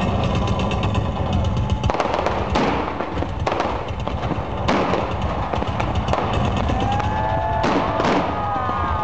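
Concert stage pyrotechnics going off: about half a dozen sharp bangs at irregular gaps over a steady low rumble through the sound system. Near the end, whistling tones glide up and down.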